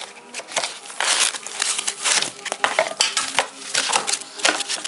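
Polyethylene foam packing insert and cardboard box scraping and rustling as the insert is pulled out of the box, with plastic wrap crinkling. The sound comes as a quick, irregular run of scrapes and crackles.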